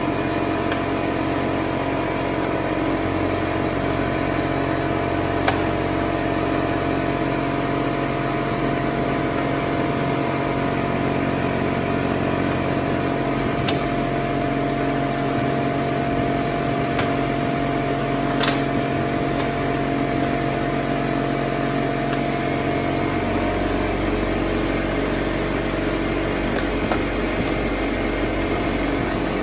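A motor running with a steady hum, its low tone shifting slightly about two-thirds of the way through, with a few faint clicks of a hand tool on the chainsaw's plastic housing.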